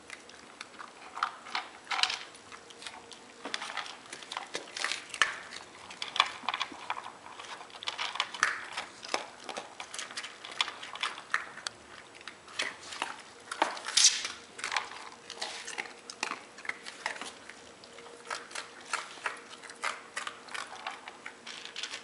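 Dogs crunching dry kibble and pushing it around in their food bowls: a run of irregular crisp crunches and clicks, with one sharper click about two-thirds of the way through.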